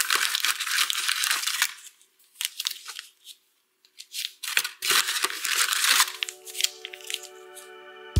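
Paper packaging and vitamin C stick sachets rustling and crinkling as a hand pulls them out of their box, continuous at first, then in short bursts with quiet gaps. Soft music comes in about six seconds in.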